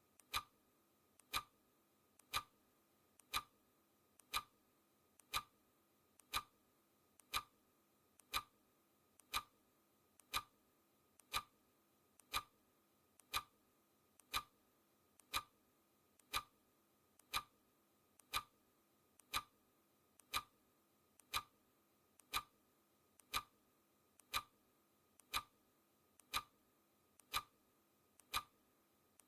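Clock ticking at one tick a second, each sharp tick preceded by a much fainter click.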